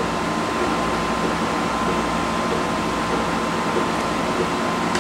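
Steady machine hum and whir with a thin, constant high whine, as from a fan or motor-driven appliance running.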